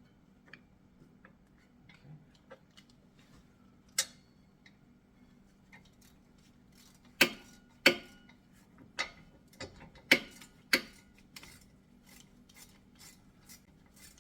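Metal clicks and knocks of hand tools and brake caliper parts, with several sharp knocks about halfway through. Near the end comes a run of evenly spaced ticks, about two a second.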